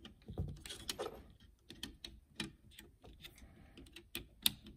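Faint, irregular small clicks and taps of a thin screwdriver and thermostat wire against the plastic screw terminal block of a Honeywell thermostat wall plate, as the wire is fitted into the terminal and the screw is worked.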